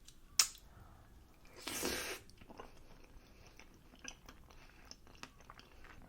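Close-miked mouth sounds of someone eating pancakes: a sharp click, a louder noisy bite about two seconds in, then soft chewing clicks.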